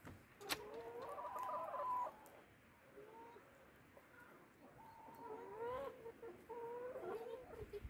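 Brown laying hens clucking, with several drawn-out calls in the first two seconds and again in the second half. A single sharp click sounds about half a second in.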